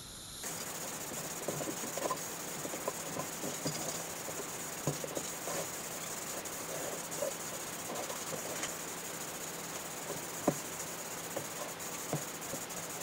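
Paint spray gun hissing steadily with compressed air, with a few faint scattered ticks.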